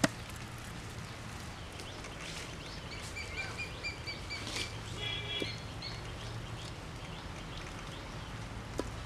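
Small birds chirping in short repeated phrases over a steady low background hum, with a sharp click right at the start.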